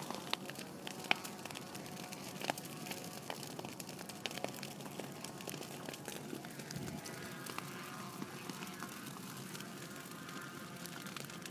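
Burning grass crackling, with scattered sharp irregular pops over a steady low rush.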